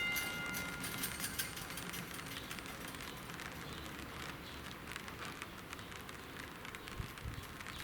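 The last strike of a level-crossing warning bell rings out and dies away in the first second. After it comes a faint, steady crackling made of many small ticks.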